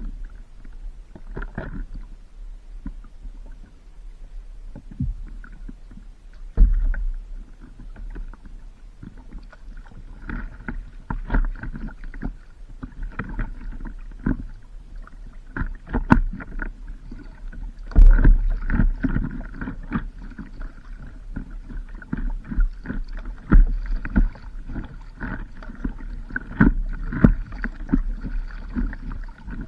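Paddling on open water: a stand-up paddleboard paddle splashing through the water in irregular strokes, with water slapping and knocking against the board. A steady low rumble of wind runs underneath, with several heavier thumps, the loudest about 18 s in.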